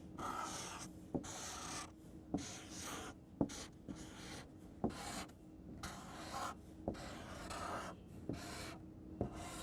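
Writing on a board by hand: a run of short scratchy strokes, with sharp taps as the writing tool touches down between them.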